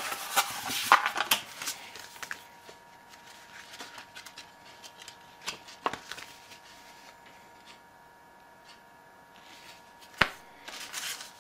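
Cardboard packaging and paper being handled: rustling and scraping for the first two seconds or so, then only scattered light taps, a single sharp tap about ten seconds in, and more rustling near the end.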